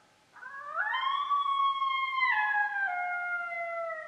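Coyote call playing a young female coyote's invitation howl: one long howl that swoops up about half a second in, holds, then drops in pitch in steps and trails off near the end.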